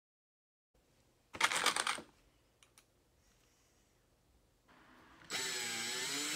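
A short burst of clicking about a second and a half in, then near the end a cordless drill starts and runs steadily, its motor pitch dipping and rising as it drives a screw through a steel hinge into a wooden board.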